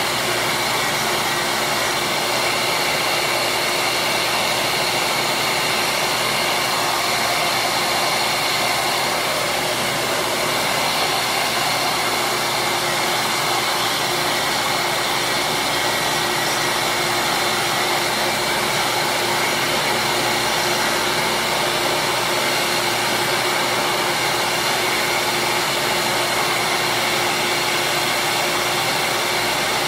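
Electric bench grinder running steadily at speed while small plastic curling-shoe slider pieces are shaped against its spinning wheel.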